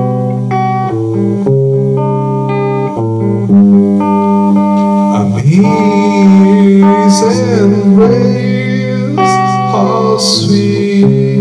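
Electric guitar played loudly through an Ecopower EP-1904 battery-powered amplified speaker, ringing chords with held notes. About halfway in, a man's singing voice joins through the speaker's wireless microphone.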